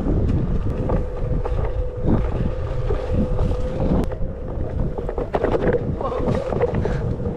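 Wind buffeting the microphone while riding a Onewheel over a rough dirt trail, with a steady high whine from the board's hub motor and scattered knocks and rattles from bumps in the ground.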